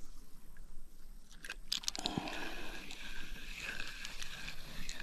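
Kayak on a river: water lapping and splashing around the hull and paddle, with a few light, sharp knocks about a second and a half in.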